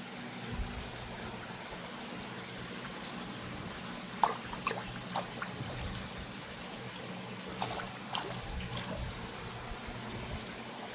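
Water trickling steadily over a low steady hum, with a few light clicks and knocks about four seconds in and again around eight seconds.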